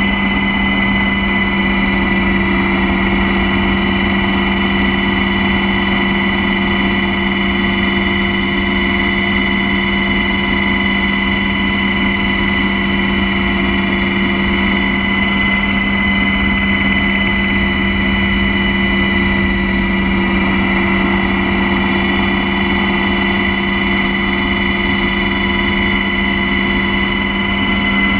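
Small aircraft's engine droning steadily in flight, heard from on board, with a constant high-pitched whine over it.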